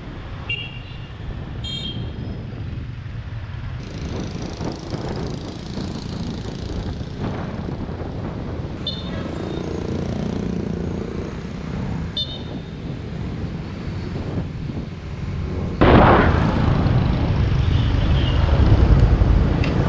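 Busy motorbike traffic: engines running with short horn toots several times. About 16 seconds in, the noise suddenly gets much louder.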